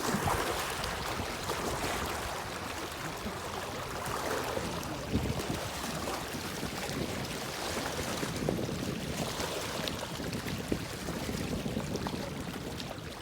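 Water lapping and gently splashing, with wind buffeting the microphone.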